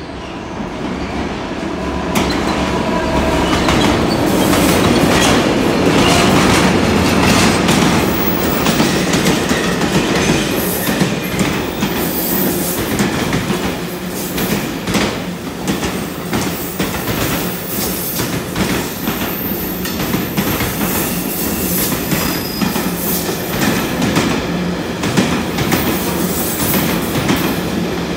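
Long loaded engineering freight train hauled by a Class 66 diesel locomotive, with its two-stroke V12 engine, passing through; loudest a few seconds in as the locomotive goes by, then a long run of wagons with wheels clicking over rail joints.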